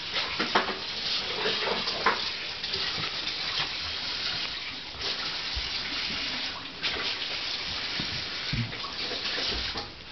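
A dog licking and lapping wetly at food mixed with cough medicine, a run of small wet clicks and smacks.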